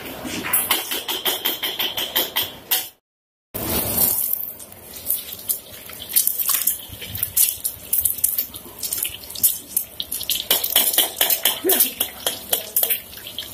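Egg frying in oil in an aluminium wok, sizzling under the quick scrape and clink of a metal spatula against the pan. The sound drops out completely for a moment about three seconds in.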